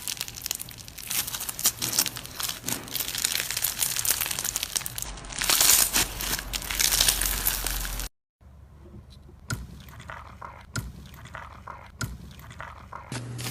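Slime being squeezed and worked by hand, giving a dense crinkling, crackling sound. After a short break about eight seconds in, it turns quieter, with sparser clicks and pops.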